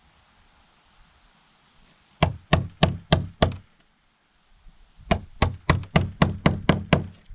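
Hammer driving nails into a wooden plank door: five quick strikes about two seconds in, a pause, then a run of about eight strikes at roughly four a second.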